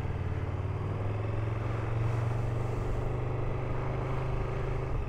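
KTM adventure motorcycle's engine running steadily while riding, a low even drone.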